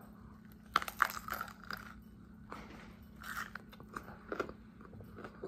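A bite into a stuffed raw green bell pepper: sharp, crisp crunches about a second in as the teeth go through the pepper, then chewing with scattered smaller crunches.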